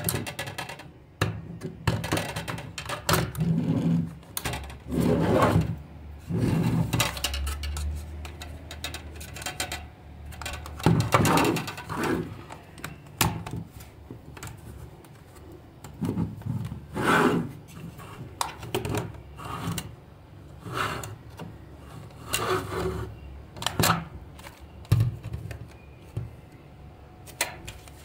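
Hard plastic toy race-track pieces being handled: irregular clicks, clacks and short scraping rubs as the parts knock and slide against each other.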